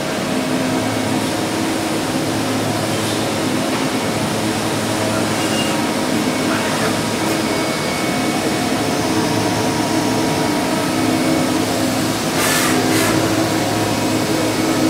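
Steady hum of the electric motors and fans of powered machine-shop equipment, with several steady tones running through it. Two brief hisses come about twelve and a half seconds in.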